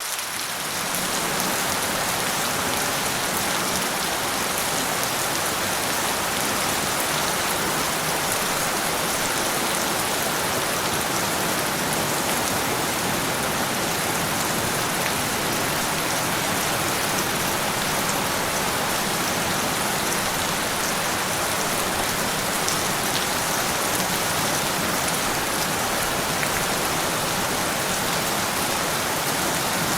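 Steady heavy rain falling, a dense even hiss with many small drop ticks, fading in over the first second.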